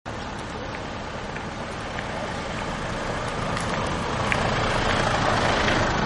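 A pickup truck driving over stone paving toward the listener and passing close by, its engine and tyre noise growing steadily louder as it nears.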